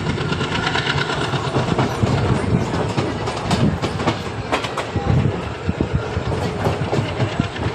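Indian express passenger train running, with a steady rumble and many irregular knocks of the wheels over the rail joints.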